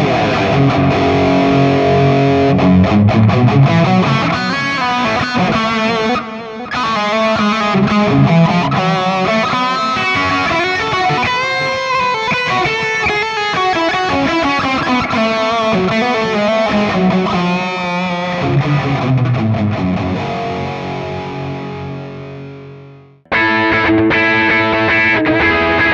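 Photogenic Les Paul-style electric guitar played through a NUX MG-300 multi-effects processor on a distorted solo lead preset: a lead line with bent and sustained notes that fades out near the end. After a short break, an overdrive preset begins with a new riff.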